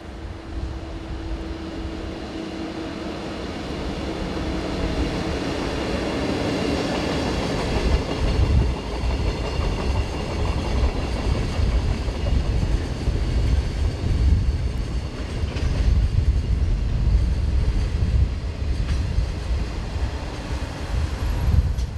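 JR Freight EF64 electric locomotive and its long train of container wagons passing close by. A steady hum comes first as the locomotive approaches. The sound then builds over the first several seconds into the rumble and clatter of the wagon wheels on the rails.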